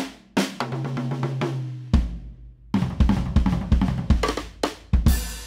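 Solo drum-kit playing on a vintage kit: 1930s Ludwig & Ludwig toms, a 1960s Leedy bass drum, a 1920s Ludwig brass snare and Paiste Traditional cymbals. Scattered strokes and one low drum note that rings on for over a second give way to a quick run of bass-drum and tom hits. A cymbal crash near the end rings on.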